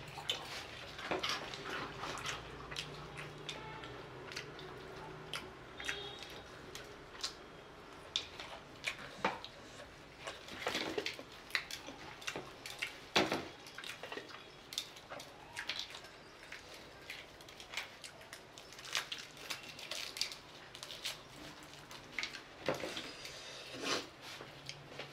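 Close-up eating sounds: the crispy breaded coating of fried chicken crackling as gloved hands pull it apart, with chewing, in irregular clicks and crunches.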